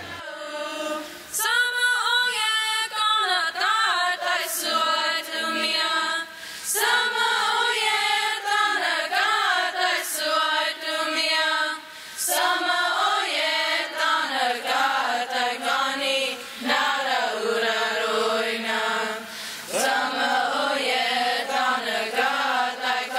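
Youth choir of mostly female voices singing a Comanche hymn unaccompanied, starting about a second in, in long sustained phrases separated by brief breath pauses.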